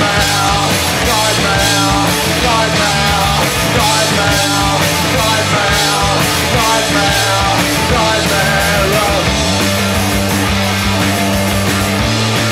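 Live punk rock band playing an instrumental passage: distorted electric guitars repeating a riff over bass notes and drums, with no vocals.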